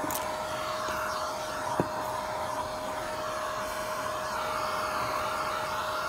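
Eureka Mighty Mite canister vacuum running steadily with a constant whine as its wand sucks across van floor carpet. A brief sharp click about two seconds in.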